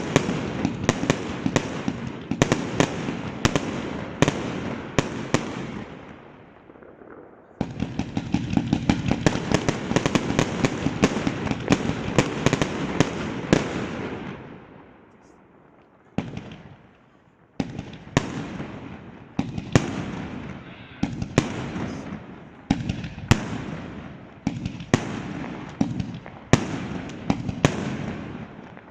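Fireworks going off: dense rapid crackling bangs that die away, start again abruptly, and fade out once more around the middle, then separate bangs at roughly one a second, each trailing off.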